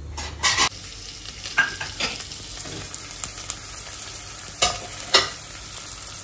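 Chopped onions tipped into hot oil with cumin seeds in a steel kadai, with a loud burst of sizzling about half a second in. The frying sizzle then goes on steadily while the onions are stirred, with a few short scraping strokes against the pan.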